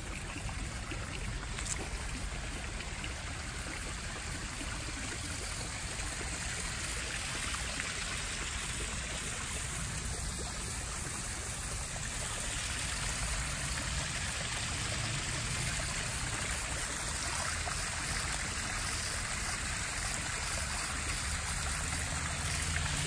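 Water from a small rock waterfall splashing and trickling steadily into a backyard koi pond.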